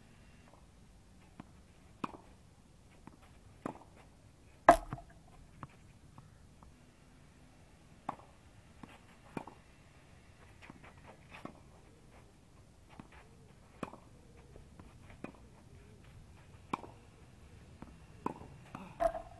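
Tennis rally on a clay court: sharp racket strikes on the ball every second or two, with fainter ticks between them, the loudest strike about five seconds in.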